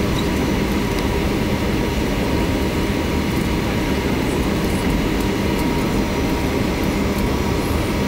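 Boeing 737-800 cabin noise while taxiing: the CFM56-7B engines running at low taxi power, giving a steady low hum over a continuous rumble.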